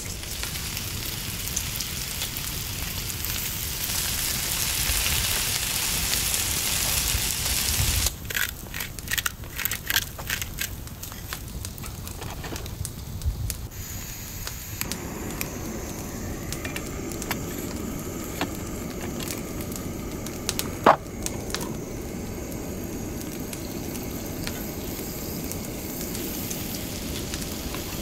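Hiss and crackle of a campfire for the first several seconds, then a run of irregular clicks. From about halfway a backpacking canister stove burner is lit and runs with a steady low roar, with one sharp click a few seconds after it starts.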